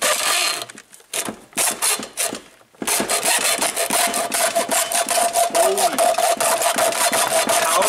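Hacksaw cutting through a steel oil-filter canister held in a bench vise, the thin metal can ringing under the blade. For the first few seconds the strokes are uneven and broken. After a short pause near the three-second mark they become fast and steady, with a sustained ring, and the whole thing is very loud.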